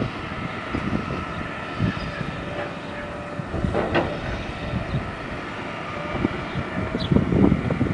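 Heavy construction machinery working: a steady engine drone, with a couple of sharp knocks about four and seven seconds in.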